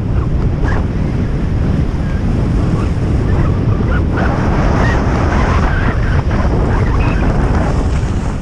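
Wind buffeting the microphone of a body- or helmet-worn action camera during a fast ski descent, mixed with the steady hiss and scrape of skis sliding over snow.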